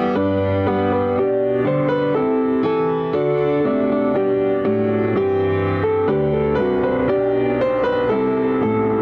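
Solo piano playing chords with a melody over them, the notes held and overlapping.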